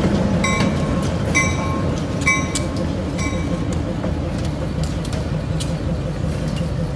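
Diesel locomotives rumbling past at low speed on adjacent tracks. A warning bell dings about once a second and stops about three seconds in. A few sharp metallic clanks follow near the end.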